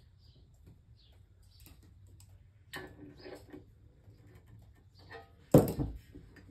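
Small clicks and metal clinks of an adjustable wrench on the nut of a cast iron desk-leg bracket, with a ringing clatter about three seconds in. A heavy thump about five and a half seconds in is the loudest sound, as the cast iron leg assembly is handled on the bench.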